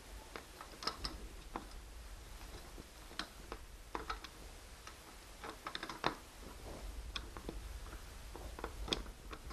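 Scattered, irregular light clicks and taps of hand tools and metal and plastic parts being handled while tailgate handle screws are fitted.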